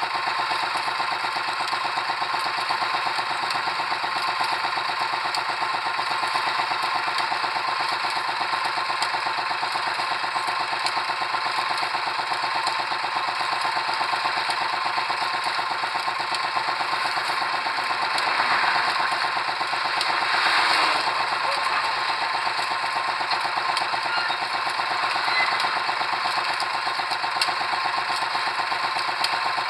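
Pile-driving machinery running steadily with a fast, even rattle, with two brief swells of noise about two-thirds of the way through.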